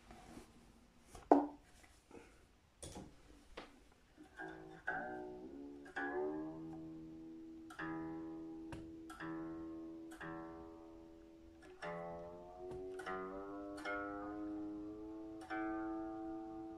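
Epiphone Sheraton II semi-hollow electric guitar being tuned: single strings plucked one after another and left to ring and fade, the pitch of a ringing note sliding slightly as the tuning peg is turned. Handling clicks and one sharp knock come in the first few seconds, before the notes start.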